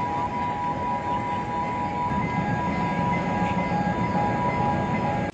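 Sri Lanka Railways Class M10A diesel locomotive running while standing still: a steady engine noise with a constant high whine.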